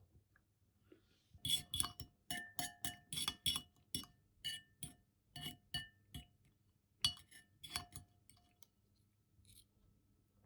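An eating utensil clinking and scraping against a dish, a run of sharp ringing clinks, a couple a second, that stops a couple of seconds before the end.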